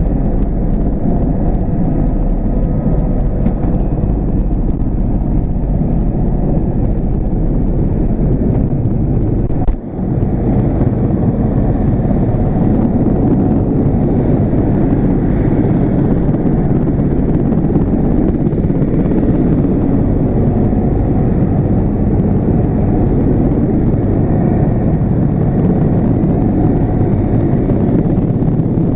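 Helicopter running on the ground with its rotor turning: a steady, loud, low rumble of turbine and rotor, broken once by a brief knock about ten seconds in.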